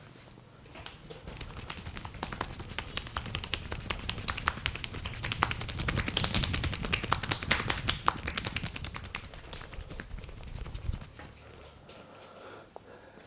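Hands slapping and tapping rapidly on skin in percussive massage strokes on the arm. The strokes start softly, get loudest around six to eight seconds in, and stop about eleven seconds in.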